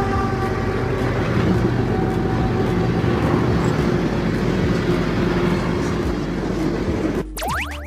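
Military train running past with a steady, loud rumble. Near the end it cuts off suddenly into a fast sweeping whoosh and chiming tones.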